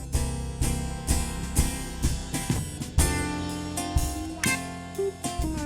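Country band playing an instrumental passage between sung verses: guitars over electric bass and drums, with a steady beat.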